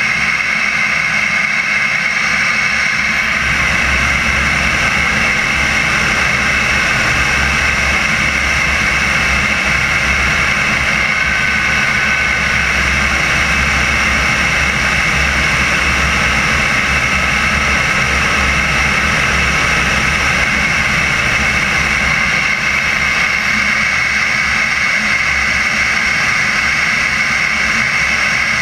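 Turbine engine of a CARF Viper model jet running steadily in flight, heard from a camera on the fuselage belly near the exhaust: a steady high whine over a heavy low rumble.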